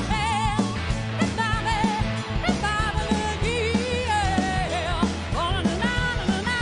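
Live rock band playing: a woman sings lead over electric guitar, keyboard, bass guitar and a drum kit keeping a steady beat.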